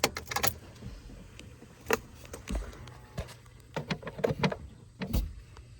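Scattered light clicks and knocks, with a couple of dull low thumps, from handling a pickup truck's cab and keys.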